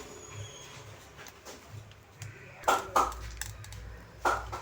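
Three sharp taps and clicks of small hard objects being handled on a workbench, over a low steady hum.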